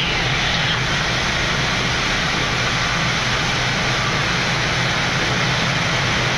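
Steady, loud cabin noise on a Boeing 787 flight deck climbing out just after takeoff: a constant rush of airflow and engine noise at climb power, with a low hum underneath and no distinct clunks or changes.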